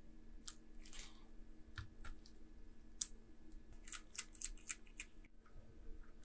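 Small plastic clicks and taps as laptop parts are handled and fitted: ribbon-cable connectors and the internal battery. There is one sharper click about three seconds in and a run of quick clicks a second later.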